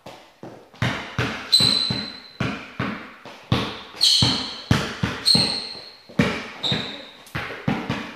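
Basketball being dribbled on a hard floor, about three bounces a second, getting louder about a second in, with short high squeaks between some bounces.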